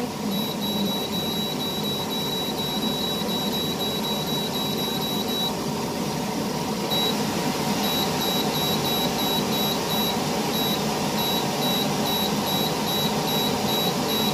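Short electronic beeps from a cooker's control panel as its buttons are pressed to set the steaming time, about three a second, stopping for a moment in the middle and then starting again. A steady whir runs underneath.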